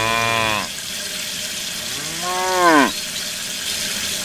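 A cow mooing twice: the first moo trails off about half a second in, the second starts about two seconds in and drops sharply in pitch at its end. A steady hiss of water spraying from a small shower head runs underneath.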